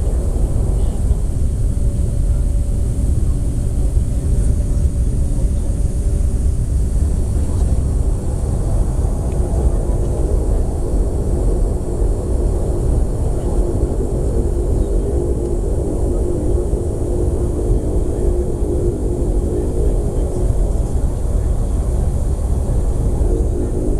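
Aircraft engines running steadily with a deep rumble and a droning hum that grows stronger about ten seconds in.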